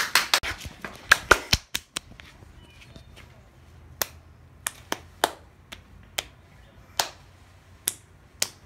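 A quick cluster of sharp clicks and knocks during the first second and a half, then single sharp clicks or snaps at uneven gaps of half a second to a second.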